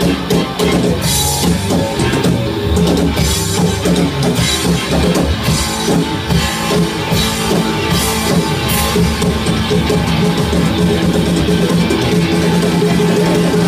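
Live rock band playing an instrumental passage: electric guitar, bass guitar and drum kit. Drum and cymbal hits come thick through the first eight seconds or so, then the playing settles into a steadier, more sustained stretch.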